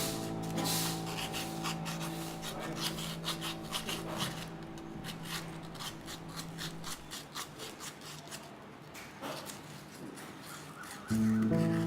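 Irregular rubbing and scraping strokes, under a held piano note that fades out over the first several seconds; piano music comes back in near the end.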